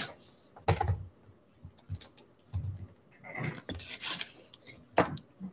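Hands handling sealed cardboard trading-card boxes on a tabletop: scattered rubbing and rustling, with a few sharp clicks and knocks and a longer rustle in the middle.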